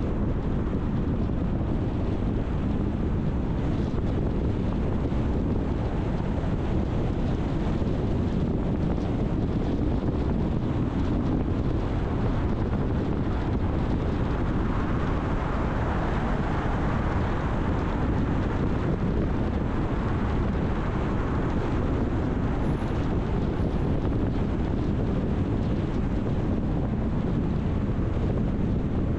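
Car driving on city streets: a steady low rumble of tyre and road noise with some wind, swelling for a few seconds near the middle.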